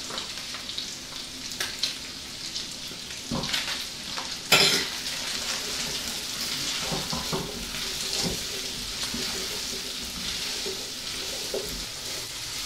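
Onions, button mushrooms and thyme frying with bacon in a non-stick pan: a steady sizzle, stirred with tongs that click against the pan now and then, with one louder knock about four and a half seconds in.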